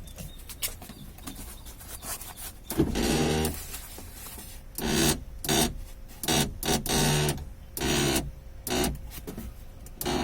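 Ford Focus power window motor and regulator run in a series of short bursts, the glass driven up and down a bit at a time, starting about three seconds in. This is the noisy window, which the owner traces to a sticking cable pulley in the regulator.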